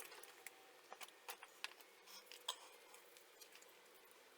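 Near silence with a handful of faint, scattered clicks of hand tools being worked on a radiator hose clamp.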